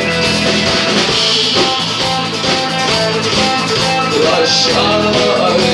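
Live rock band playing, with guitars and drums.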